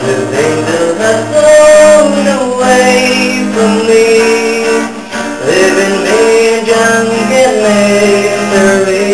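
Pop ballad music with guitar accompaniment, a melody line sliding between long held notes over a steady chord bed.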